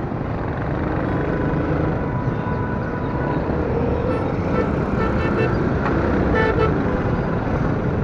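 Busy street traffic heard from a slowly moving motorcycle: steady engine and road noise, with a few short vehicle horn toots in the second half.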